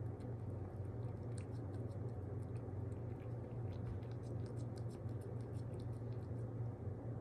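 A pet eating wet food: many quick, small wet clicks of chewing and licking over a steady low hum.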